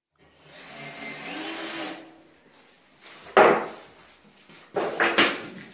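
Cabinet fitting work: a small power tool whirs for about two seconds. Then comes one loud knock on wood, and near the end a quick run of three more knocks.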